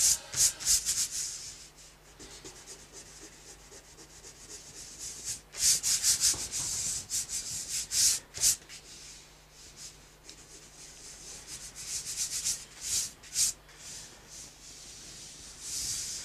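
Dried masking fluid being rubbed off watercolour paper: quick, dry scratchy strokes in three spells, near the start, in the middle and a little later, with quieter pauses between.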